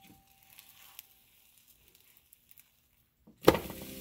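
A few faint light clicks, then near the end a bread-and-egg omelette is flipped and lands in the hot oiled non-stick pan with one loud slap, and the pan starts sizzling at once.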